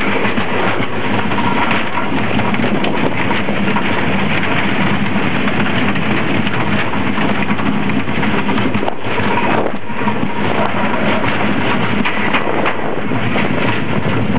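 Wooden roller coaster train (TOGO/RCCA White Canyon) running along its wooden track, its wheels rattling and rumbling over the timber structure in a loud, dense, continuous clatter, with a brief lull about nine seconds in.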